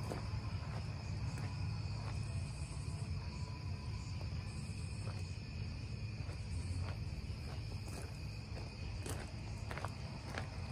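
Crickets chirping steadily over a low, constant hum, with footsteps crunching on gravel that grow more distinct near the end.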